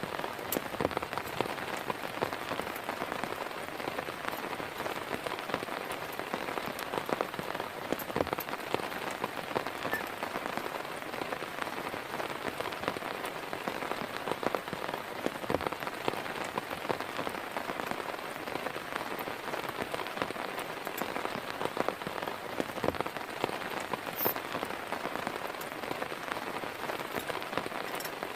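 Rain falling steadily, a dense even hiss with many individual drops striking a surface close by.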